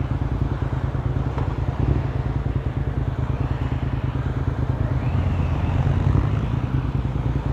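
Motorcycle engine running steadily under way, with a fast, even pulsing rumble, mixed with wind and road noise.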